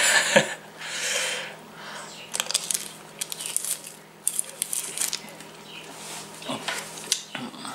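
The plastic sleeve of a freeze pop crinkling, with small clicking mouth sounds as the ice pop is sucked, and breathing in between.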